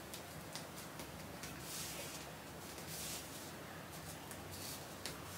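A comb drawn repeatedly through long straight wig hair, giving a string of faint, brief swishes.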